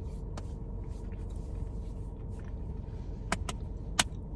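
Steady low rumble and hum inside a car's cabin, with three sharp clicks in the last second and a half.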